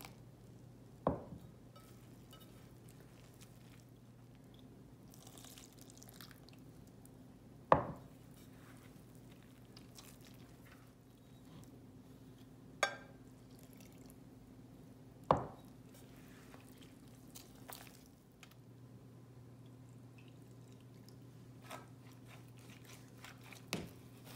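A utensil knocking sharply against a glass mixing bowl a handful of times, several seconds apart, while flour and warm water are stirred into a dough, over a faint steady hum.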